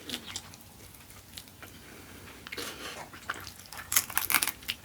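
Close-miked chewing of a chicken wing: soft, wet mouth clicks and smacks, with a quick cluster of them about four seconds in.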